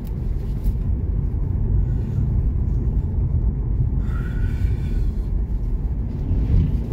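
Steady low road and engine rumble heard from inside a moving car's cabin, with a faint higher whine for about a second, four seconds in.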